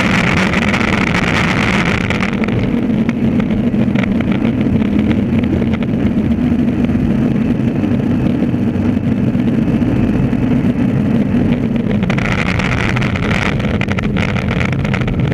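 Skateboard wheels rolling fast on asphalt, a steady loud rumble heard right at the board, with added hiss in the first two seconds and again from about twelve seconds in.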